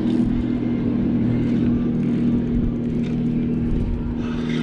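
Steady low drone of a motorboat's engine running at an even pitch.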